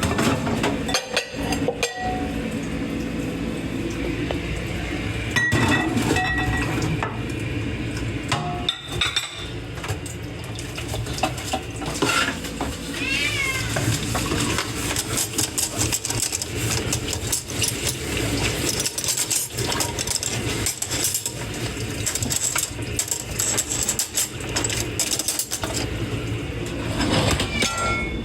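Dishes and cutlery clinking and knocking together as they are hand-washed in a sink, with a cat meowing in the background about halfway through.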